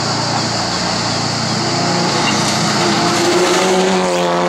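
Engine of a Fiat 500 Abarth-based race prototype running hard, with a steady wash of engine and road noise. About halfway through, a clear engine note emerges and climbs in pitch as the car accelerates.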